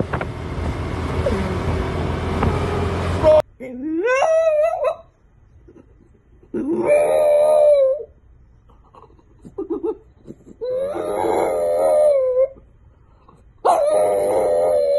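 A French bulldog howling: four long, wavering howls with short pauses between them, the first sliding upward in pitch. For the first three seconds or so there is instead a steady rush of wind and street noise, which cuts off abruptly before the howls begin.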